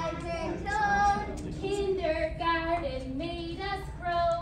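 Children's voices singing a song, a melody of held notes that step up and down.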